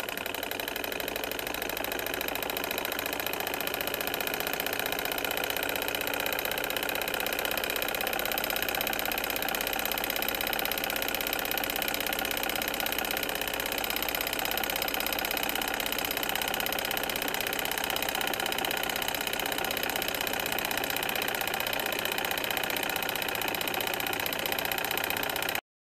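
Small Solar Engines hot air engine running steadily under its flame, its flywheel and piston linkage giving an even mechanical running sound. The sound cuts off abruptly just before the end.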